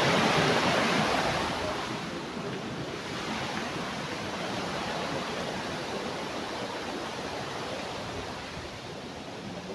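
Steady rushing of a waterfall, louder for about the first second and a half, then settling lower and even.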